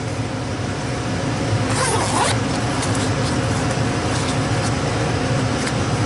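Zipper of a soft Fluke meter case being pulled open, a short scraping run about two seconds in followed by a few light handling ticks, over a steady machinery hum.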